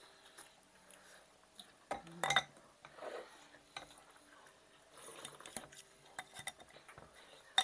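Forks and spoons clinking and scraping against glass bowls of noodle soup during a meal: scattered light clicks, with a louder cluster a little after two seconds.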